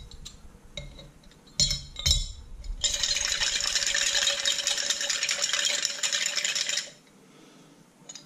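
Small metal mower parts such as clips clinking as they drop into a glass jar of soaking liquid, then the jar shaken hard for about four seconds, the parts rattling against the glass.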